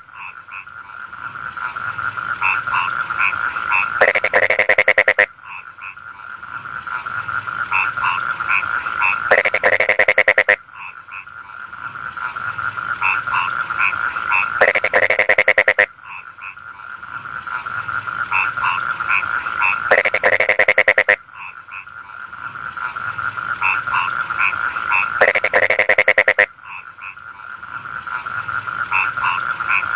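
Rice-field frog chorus: a steady trill underneath, with a loud rapid run of croaks about every five seconds and quieter calls building up between them. A steady high hiss sits over it all.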